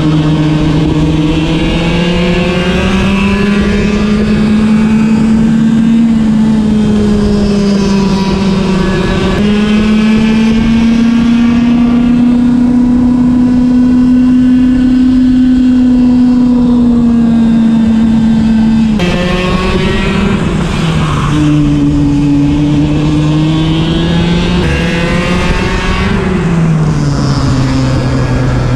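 Racing kart engine running at speed, heard onboard. Its pitch climbs slowly along the straights and drops back into the corners, with two abrupt jumps in pitch partway through.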